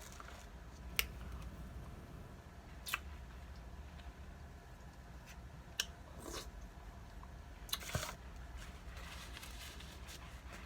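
Close-up eating sounds: quiet chewing with a few separate sharp clicks and smacks over a low steady hum.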